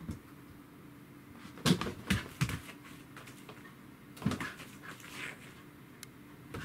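A few short thumps and scuffles of a kitten jumping onto and scampering about a plastic pet carrier while playing with a corgi: three knocks in quick succession about a second and a half in, another one a little after four seconds in.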